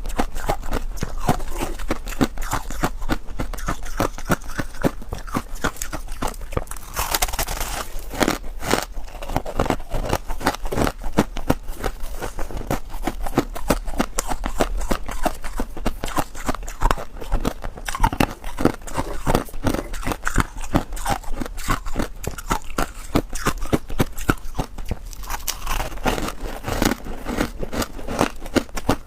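Freezer frost being bitten and chewed: a dense, continuous run of crisp crunches and crackles.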